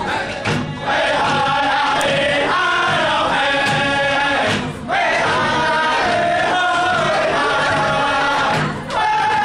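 Group of singers singing a Native American round dance song together with hand drums, in long sung phrases that break briefly for breath about every four seconds.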